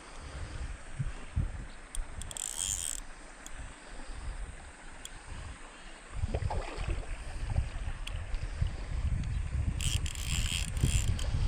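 Wind buffeting the microphone in an uneven low rumble that grows stronger about six seconds in. Two short high hissing bursts, one a couple of seconds in and one near the end.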